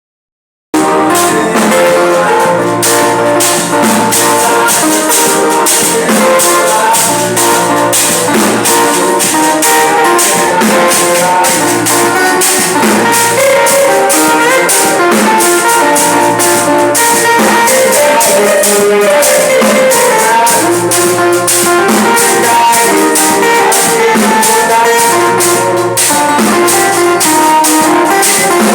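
Instrumental music with a steady beat and several pitched instrument lines, starting abruptly just under a second in.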